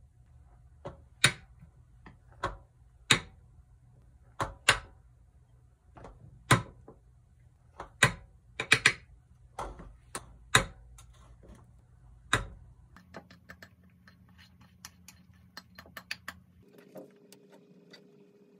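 A wooden spoon knocking and tapping against a ceramic bowl and dish while rice is scooped out, about a dozen sharp knocks at irregular intervals. From about thirteen seconds in, only fainter, quicker ticks.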